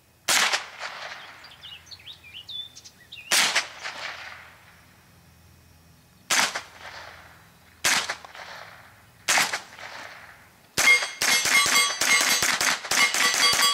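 Ruger 10/22 .22 LR carbine firing: five single shots a second or more apart, then a fast string of shots about three quarters of the way in. The steel plate targets ring as they are hit.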